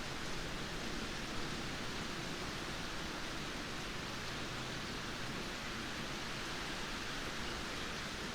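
Steady rainfall: a dense, even hiss with no single drops standing out.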